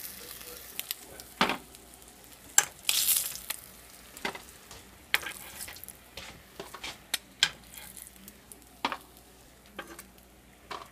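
Metal spatula scraping and clicking against a frying pan as pieces of fried fish are lifted out, over a low sizzle of hot oil. The clicks and scrapes come irregularly, with a longer hissing scrape about three seconds in.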